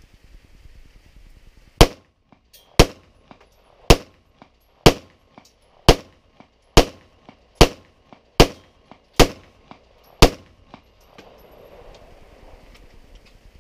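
Smith & Wesson SD9VE 9mm pistol firing ten shots of 115-grain full metal jacket ammunition, about one a second, starting about two seconds in and coming slightly faster toward the end. Fainter gunshots from other shooters on the range fall between them.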